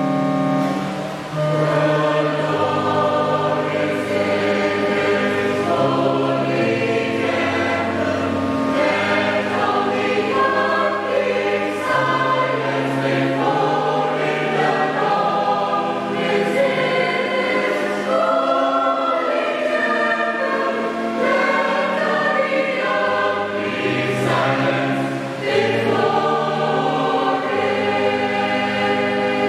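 Mixed four-part (SATB) church choir singing an anthem in held chords, the voices moving together in harmony.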